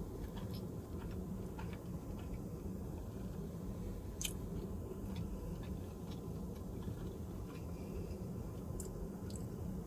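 A person chewing a mouthful of sushi burrito, with small wet mouth clicks here and there and one sharper click about four seconds in, over a steady low hum.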